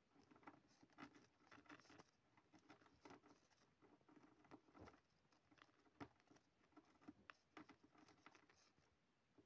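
Faint scratching and rustling in short irregular bursts from a house mouse moving about.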